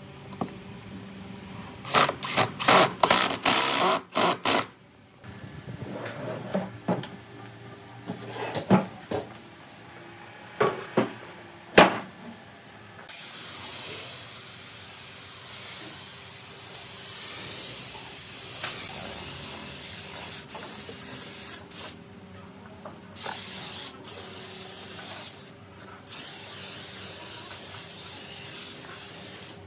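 Cordless impact driver driving screws into pine, in rapid hammering bursts with clicks between them. Then a compressed-air spray gun hisses steadily while spraying finish, stopping briefly twice.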